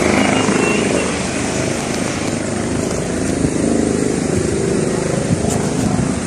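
Steady engine noise from nearby vehicles or aircraft, with voices in the background.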